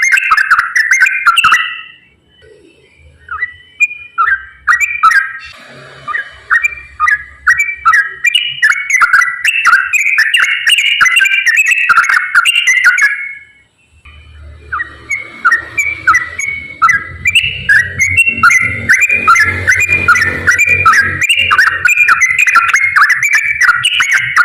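Yellow-vented bulbul (trucukan) singing loudly in long runs of rapid whistled notes, the fast 'ropel' song used as a lure for birds that won't sing. It breaks off briefly twice and starts again.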